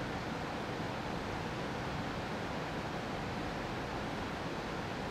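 Steady, even hiss with a low rumble underneath: background noise of a room, with no engine or voice in it.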